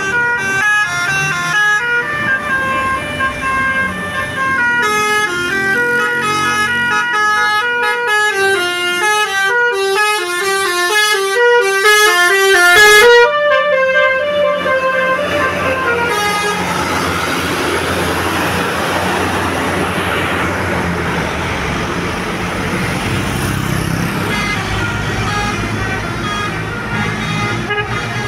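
Bus 'telolet' basuri horn playing a fast tune of short stepped notes, ending on a held note about halfway through. After it comes a steady rushing noise over a low engine hum.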